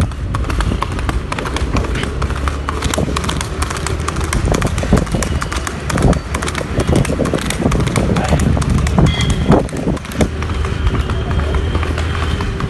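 Horse's hooves clip-clopping as it is ridden: a long run of short, uneven knocks over a steady low rumble.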